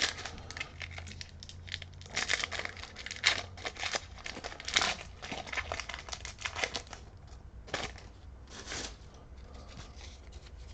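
Foil wrapper of a Pokémon trading-card booster pack crinkling and being torn open, in several short bursts of crackling.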